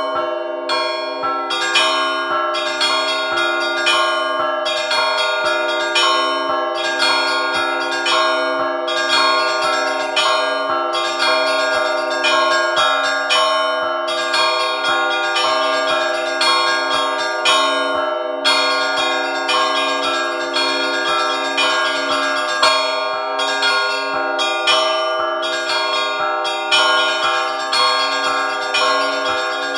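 Russian Orthodox church bells, clapper-rung by one bell-ringer in a continuous peal. Quick, dense runs on the small bells sound over a regular, steady stroke of a lower bell.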